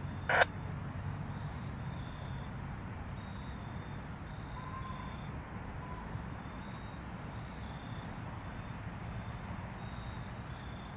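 Norfolk Southern diesel freight locomotive rumbling steadily as it pulls a freight train slowly forward. A brief loud burst of noise comes just after the start, and a faint high beeping repeats throughout.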